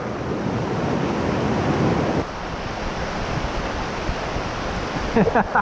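Creek water rushing steadily, mixed with wind noise on the microphone. The noise drops in level about two seconds in.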